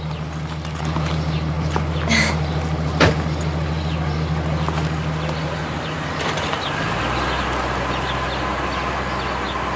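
Large 1960s American car's engine idling with a steady low hum. A car door shuts with a single knock about three seconds in. Near seven seconds the engine note drops and deepens as the car pulls away.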